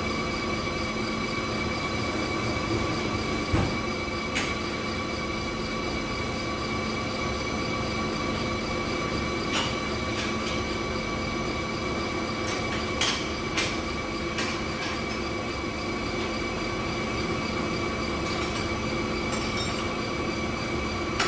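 Jet dyeing machine running: a steady mechanical hum and whine holding several fixed tones, with a few sharp clicks and knocks scattered through it.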